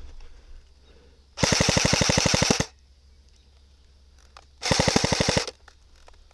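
Airsoft gun firing two rapid full-auto bursts, a longer one of over a second and then a shorter one about two seconds later.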